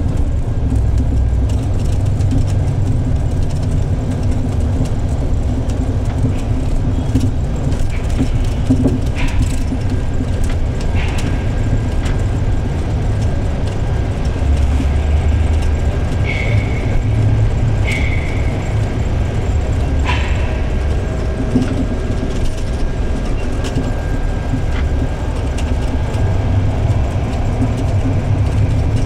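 Intercity bus diesel engine running through a modified exhaust: a loud, steady low rumble, broken a few times by sharp pops.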